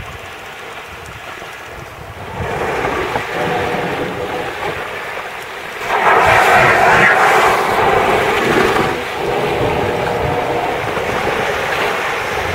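Wind and sea noise on open water. It grows louder about two seconds in, then a louder rushing whoosh lasts about three seconds around the middle.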